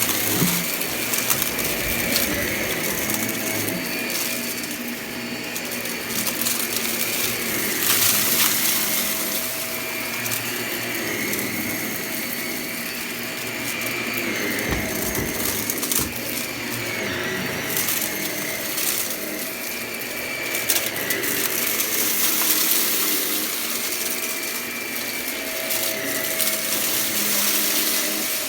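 Vacuum cleaner running and being pushed back and forth, its motor whine dipping and rising slightly with each stroke. Many small crackles come from crunchy debris being sucked up.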